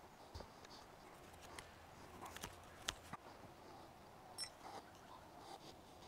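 Near silence with a few faint, scattered clicks and light taps from a small metal diamond sharpening plate and a wooden stick being handled on a wooden stump.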